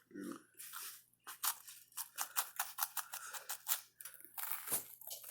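Nature Valley crunchy granola bar being bitten and chewed close to the microphone: a run of sharp, crisp crunches, several a second, with a few scattered crunches near the end.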